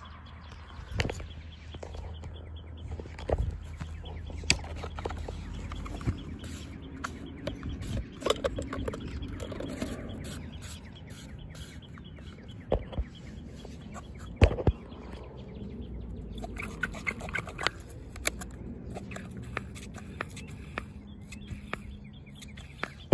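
Scattered plastic clicks and knocks as a Husqvarna 223L string trimmer is handled and readied for a cold start, with its primer bulb pressed near the end; the engine is not yet running.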